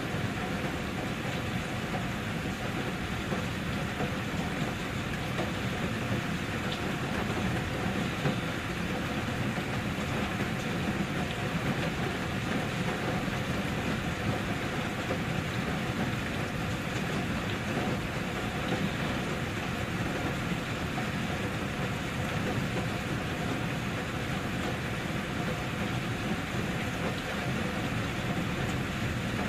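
Steady rain falling, an even hiss of rain on a surface with no separate drops or breaks standing out.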